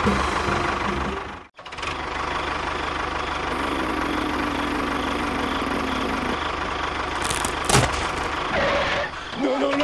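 A small engine or motor running steadily, cutting out abruptly about a second and a half in and picking straight back up, with a sharp knock near the end.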